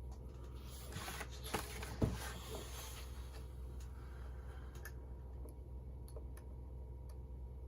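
Utility knife blade scraping and scoring along masking tape on a panel for a couple of seconds, with two sharp clicks, then only a few faint ticks, trimming the tape edges clean.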